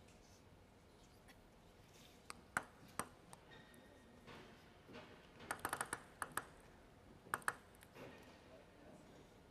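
Table tennis ball bouncing in a scattered series of sharp, light clicks, with a quick run of bounces just past halfway.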